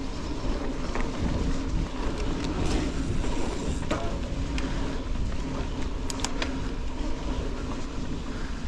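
Mountain bike rolling along a dirt singletrack: steady rumble of tyres on the trail and wind on the handlebar-mounted camera, with a few sharp clicks and rattles from the bike.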